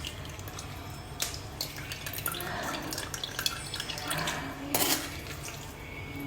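Juice from cooked Korean pear and white radish dripping and trickling into a container as it is pressed out, with a few sharp light knocks of utensils or the container.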